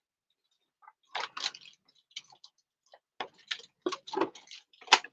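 Action-figure packaging being handled: a string of short, sharp, irregular clicks and crinkles, starting about a second in, as the figure and its parts come out of the box.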